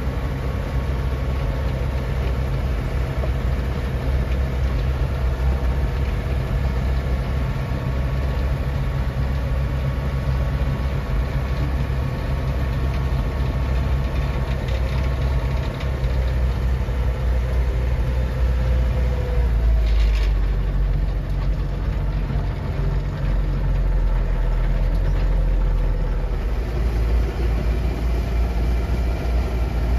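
Lovol 504 tractor's diesel engine running steadily. About two-thirds of the way in there is a short burst of noise, and after it the low engine note grows heavier.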